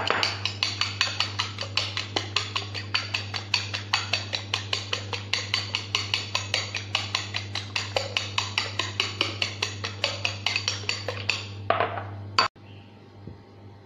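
A fork beating eggs in a bowl: fast, even clinks of metal against the bowl, about five a second, stopping about twelve seconds in.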